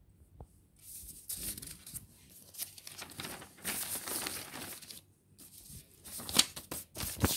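Pages of a ruled paper notebook being turned by hand: the paper rustles and flaps in several swishes, with a few sharp snaps near the end.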